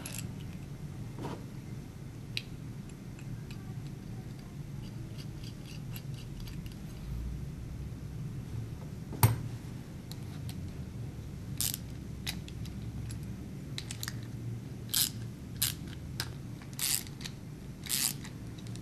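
Metal clinks and clicks of bolts and steel parts being fitted on a satellite dish roof mount, with a socket ratchet tightening the nuts, over a steady low hum. One sharp click comes about halfway through, then a run of short clicks about a second apart near the end.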